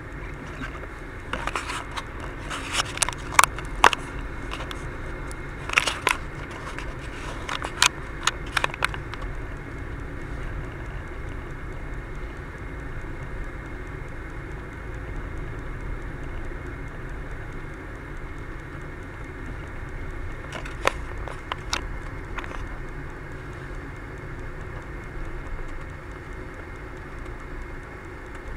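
Road and engine noise heard inside a moving car as a steady low drone. Sharp clicks and crackles are scattered through it a couple of seconds in, and again about twenty seconds in.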